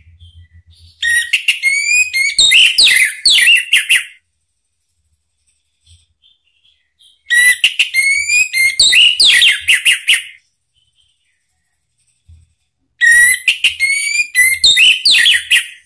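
Orange-headed thrush singing: three loud phrases of quick, varied whistled notes that slide up and down, each about three seconds long, with pauses of about three seconds between them.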